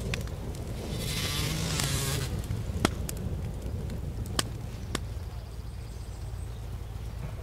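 Smouldering campfire of charred logs over a steady low outdoor rumble: a brief hiss about a second in, then three sharp pops spaced a second or so apart.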